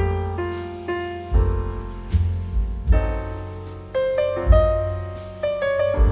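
Background music led by piano: gentle struck chords and melody notes over deep bass notes that come roughly every second and a half.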